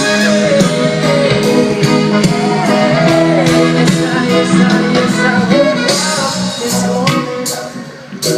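Live band music with guitar and a steady beat of percussion, recorded from the audience. It dips in level briefly near the end.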